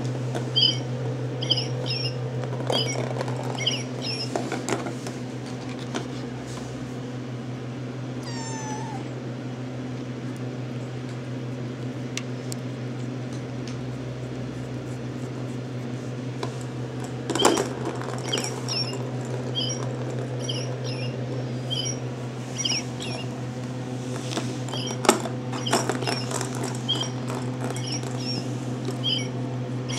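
RagaMuffin kittens mewing while they play around a plastic ball-track toy, with a few sharp knocks. Short high chirps come in clusters over the first few seconds and again through the second half, all over a steady low hum.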